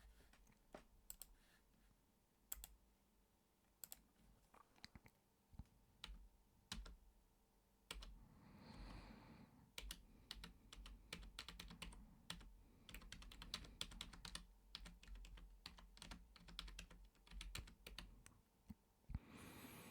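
Computer keyboard typing, quiet: scattered single keystrokes at first, then quicker runs of keys from about ten seconds in. A brief soft breathy hiss about nine seconds in.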